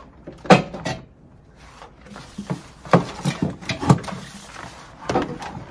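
Slow cooker holding pickle acid being shifted and slid back across a plastic tray: a handful of short knocks and scrapes, one about half a second in, several close together around the middle, and one more near the end.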